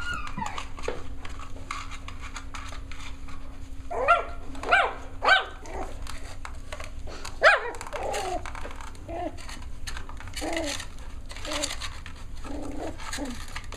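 Cavalier King Charles spaniel puppies yipping and barking in play: three sharp high yips about four seconds in, a louder one a little past seven seconds, then smaller yips.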